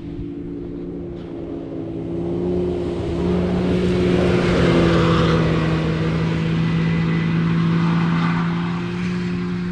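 Can-Am Maverick X3 Turbo RR's turbocharged three-cylinder engine running at speed on a steady note. It grows louder to a peak about halfway through and then eases off a little as the machine passes.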